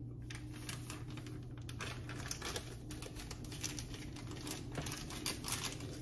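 Plastic bag of cornmeal crinkling as it is handled, a run of light, irregular crackles.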